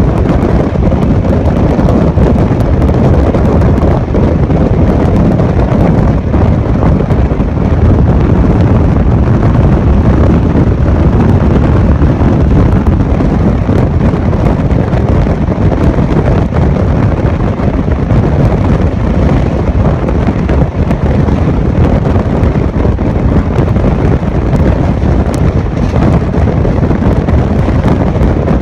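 Loud, steady wind rush battering a microphone held out in the slipstream of a Gatimaan Express coach, mixed with the low rumble of the train running at high speed.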